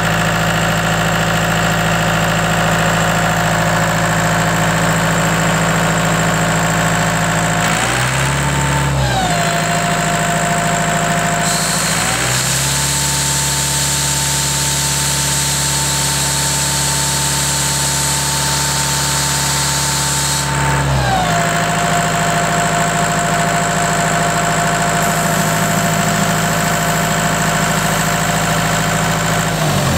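Caterpillar 3054B four-cylinder diesel running on a Sullair portable air compressor. It idles steadily, speeds up briefly about eight seconds in and drops back, then speeds up again a few seconds later and holds the higher speed for about nine seconds before settling back to idle.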